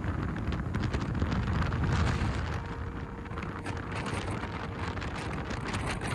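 Blizzard wind buffeting the microphone in gusts, a heavy low rumble with crackling, loudest about two seconds in.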